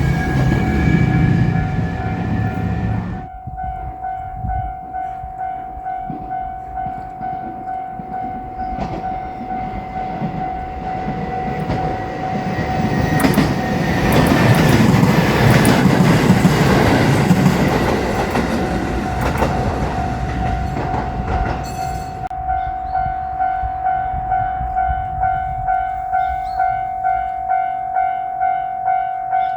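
Japanese level-crossing warning bell ringing steadily at about one and a half strikes a second while a JR Shikoku electric train, a 7200 series, passes through the crossing, loudest about halfway in. A train sound in the first few seconds cuts off sharply.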